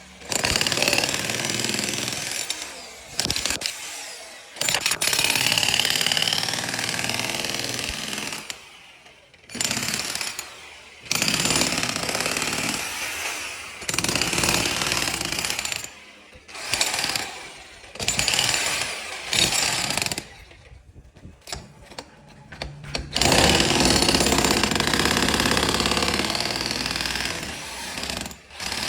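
Loud construction machinery noise from concrete work, in a string of short segments that cut in and out abruptly.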